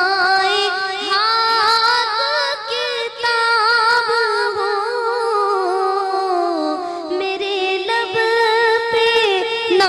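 A woman singing an Islamic devotional song into a microphone, holding long ornamented notes that waver and glide in pitch.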